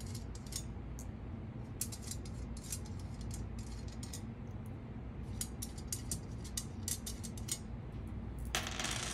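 Hands unscrewing nylon nuts from the studs of a metal antenna adapter plate, with scattered small clicks and taps of the hardware, and a brief rustling noise near the end.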